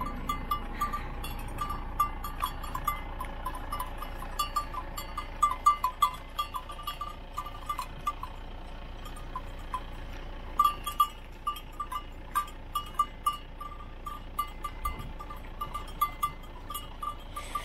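Small bell on a grazing sheep's neck clinking irregularly as the sheep moves its head, among faint quick clicks.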